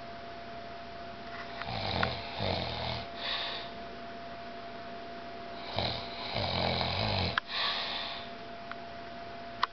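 A sleeping person snoring: two long, rattling snoring breaths about four seconds apart.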